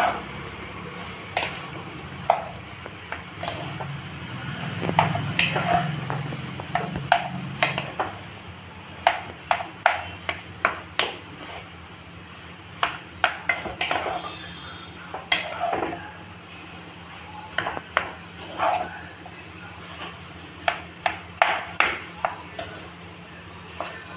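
Wooden spatula stirring boiled potato into a spiced onion-and-pea mixture in a non-stick pan, with irregular knocks and scrapes of the spatula against the pan.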